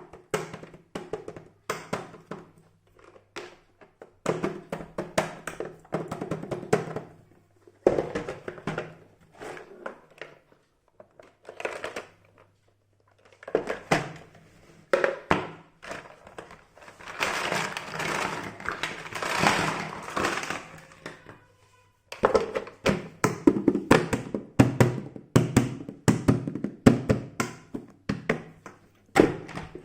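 Small plastic toy pieces being handled, with repeated clicks, taps and thunks as they are set down and fitted together. A denser stretch of rustling comes a little past the middle.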